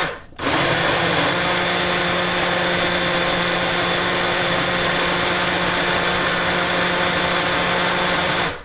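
Small countertop blender's motor running steadily, blending fruit into a smoothie. It cuts out for a moment at the start, runs again for about eight seconds, and stops just before the end.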